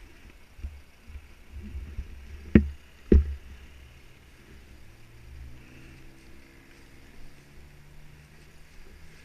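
Two loud knocks about half a second apart, among low rumbling thumps of handling. After them, a faint engine runs steadily, its pitch slowly rising.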